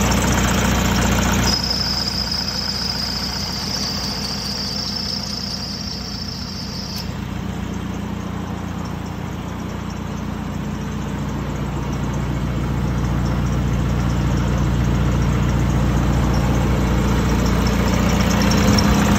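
Tuned Toyota Hilux Vigo turbo-diesel engine idling steadily with its non-VNT turbo. A thin, steady high whistle sounds for about five seconds, starting about a second and a half in.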